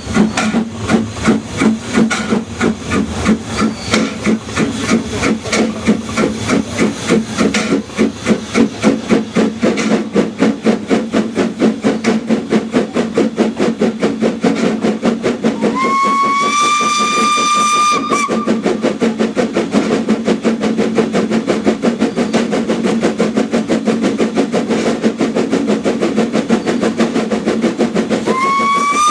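Narrow-gauge steam locomotive 101 working under steam, its exhaust beats coming faster as it gathers speed. Past the middle it gives one whistle of about two seconds, and a second whistle starts at the very end.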